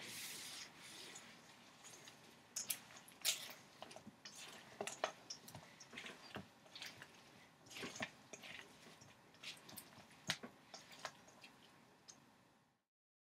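Silicone spatula stirring roasted Brussels sprouts coated in buffalo sauce in a stainless steel bowl: quiet, irregular wet squishing with scattered clicks and scrapes against the bowl. The sound stops abruptly near the end.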